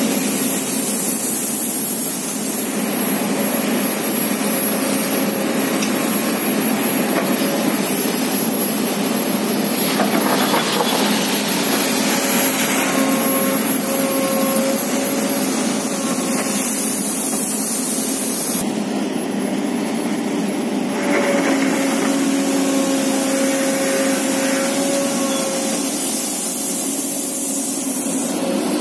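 Hydraulic excavator's diesel engine running steadily at working revs, its pitch shifting a little a few times as the hydraulics take load.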